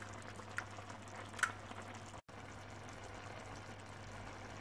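Tomato and pepper sauce simmering in a tajine, a steady bubbling hiss, with two light clicks in the first second and a half.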